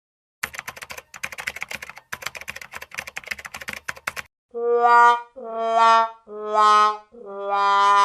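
A stretch of rapid keyboard or typewriter clicking lasting about four seconds. Then the descending 'wah-wah-wah-waaah' sad trombone comedy sting: four falling brass notes, the last one held long with a wavering vibrato.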